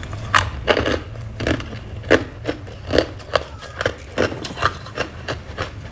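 Crunchy freezer frost being scraped and crunched: a quick, irregular run of about a dozen short, sharp crunches, two to three a second.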